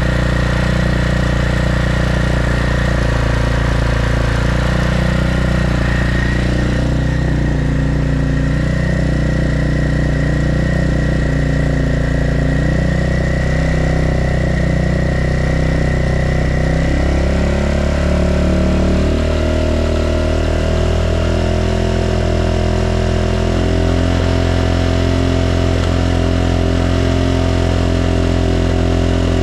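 Yamaha Majesty 250C scooter's 250 cc single-cylinder four-stroke engine idling steadily, running without abnormal noises.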